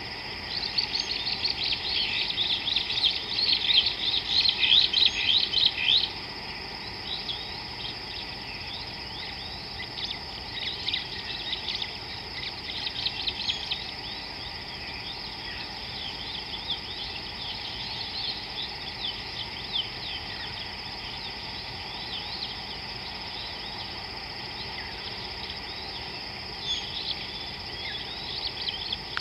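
Birds chirping in a dense, loud run of rapid calls for about the first six seconds, then in scattered calls, over a steady high insect drone.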